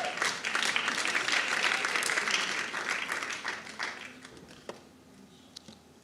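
Congregation applauding, the clapping fading away after about four seconds.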